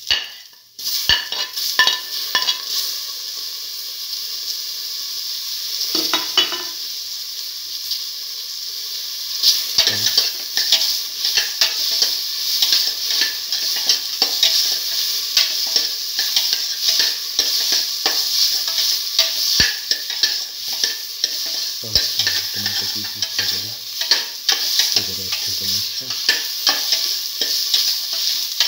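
Tomato, shallot, garlic and ivy gourd pieces sizzling in hot oil in a steel pot while a spatula stirs and scrapes them, with frequent clicks of the spatula against the metal.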